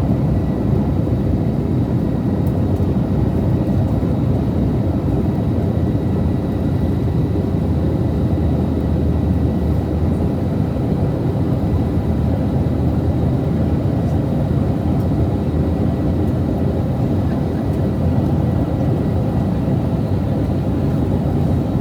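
Airbus A321neo jet cabin noise: a steady rush of engine and airflow rumble, with faint, thin, steady whine tones over it.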